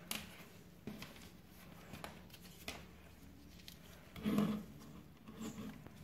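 Faint handling noises: gloved hands moving loose wires and a small plastic drain-motor actuator on a bench. There are a few light clicks, and a louder rub or knock about four seconds in.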